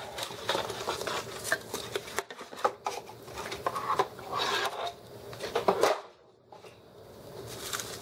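Bubble wrap crinkling and crackling as a wrapped keyboard is handled and lifted out of its cardboard box, with scattered clicks and knocks from the box. The handling noise goes quiet briefly about six seconds in.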